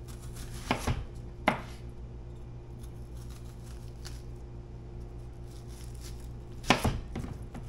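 Chef's knife slicing an onion into rings on a plastic cutting board: a few sharp knocks of the blade hitting the board, about a second in, at a second and a half, and again near the end, over a steady low hum.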